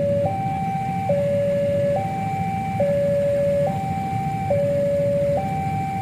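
Railway level-crossing warning alarm sounding: an electronic two-tone signal that steps between a lower and a higher note, each held a little under a second, repeating steadily. It shows the crossing is closed for an approaching train.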